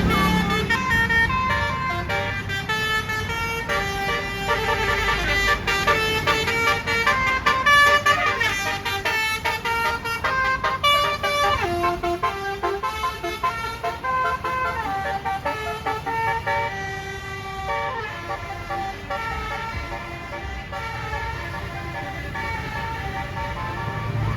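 Basuri telolet air horn on a bus playing a long melody, one held note after another in quick succession. It gets somewhat quieter after about eighteen seconds.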